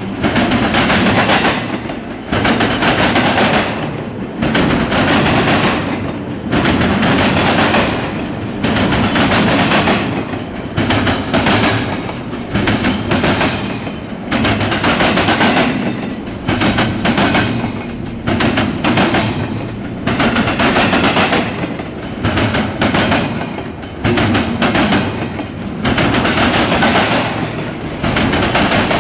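Double-stack intermodal freight train's well cars rolling past close by: a continuous rumble of steel wheels on rail, with loud, sharp wheel clatter in bursts about every second and a half to two seconds as the trucks pass.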